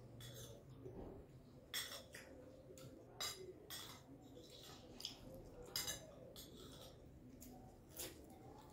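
A metal spoon clinking and scraping against a glass plate, with about six light, irregular clinks.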